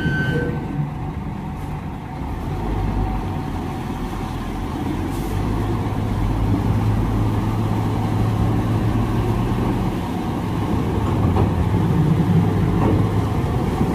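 Diesel engine of a tractor-trailer truck under throttle as it drives onto a ferry. A steady low drone that strengthens about five seconds in and builds toward the end.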